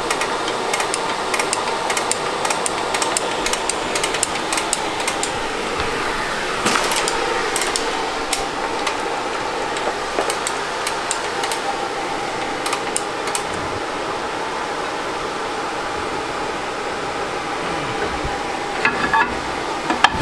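Irregular light metallic clicks and clinks, mostly in the first dozen seconds: a screwdriver ratcheting the star-wheel adjuster of a Toyota 4Runner's rear drum brake to push the shoes out toward the drum, which was sliding on too easily. A steady fan-like hum runs underneath.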